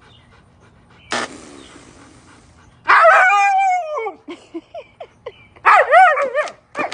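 A dog vocalizing. A sudden noisy huff comes about a second in, then a loud drawn-out cry that falls in pitch, a few short yips, and near the end another loud cry whose pitch wavers up and down, like a dog "talking back".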